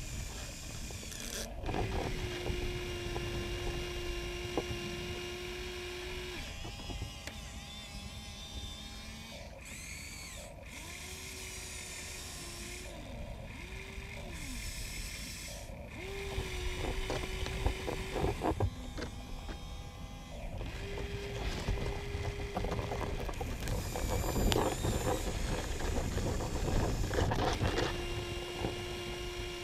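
Electric motors of Huina RC excavators whining at a steady pitch in several runs of a few seconds as the arms and buckets move. Between and over them come scrapes and knocks of the buckets working the dirt.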